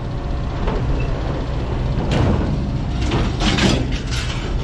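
A heavy machine's engine runs steadily while its bucket scoops scrap metal out of a truck bed. Scrap clatters and scrapes in several bursts in the second half.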